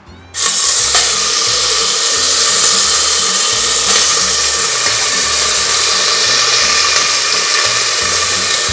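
Pieces of cow foot sizzling loudly in hot oil in a pressure cooker as they are browned. The sizzle starts suddenly as the first piece goes in and then holds steady.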